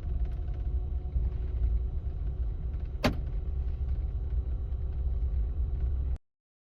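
Renault car running, a steady low rumble, with one sharp click about three seconds in. The sound cuts off abruptly near the end.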